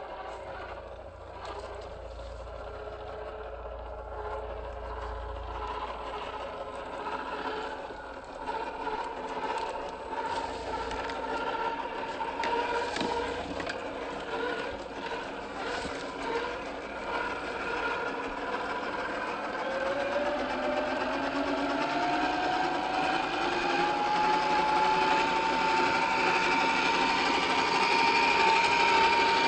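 Electric motor and gear whine of a 1/10-scale RC crawler running. Its pitch rises steadily over a few seconds in the second half, then holds, getting gradually louder.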